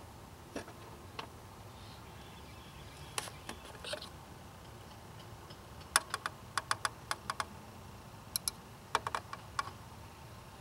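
Sharp plastic clicks and taps as the power steering reservoir cap and its dipstick are unscrewed, lifted out and handled. There is a quick run of about eight clicks around six to seven seconds in, and a few more near the end.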